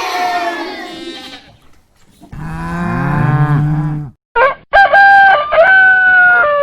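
Farm animal calls one after another: a wavering bleat at the start, a low cow moo about two seconds in, then a rooster crowing in held, flat notes through the second half.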